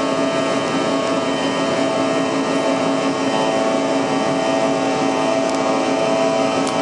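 Airliner's jet engines running at steady power, heard from inside the passenger cabin: a constant rushing hum with several steady whining tones.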